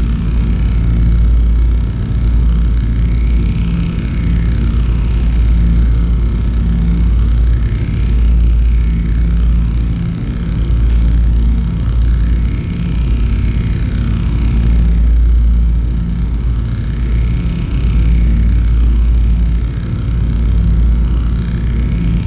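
Electronic ambient soundscape: a loud, deep steady drone that swells and eases every couple of seconds, with a higher tone sweeping up and back down about every four to five seconds.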